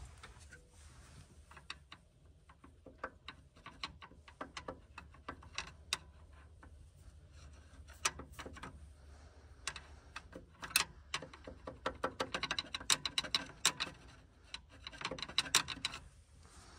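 Irregular sharp metallic clicks and ticks from tools and hardware being worked at a car's battery connections and wiring. The clicks come in quick runs in the second half.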